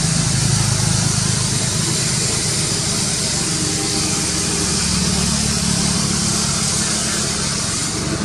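A steady engine hum under a constant high hiss.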